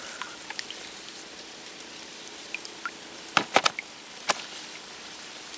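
Hooked tilapia thrashing on the line at the water surface: three short, sharp splashes a little past halfway, over a faint steady hiss.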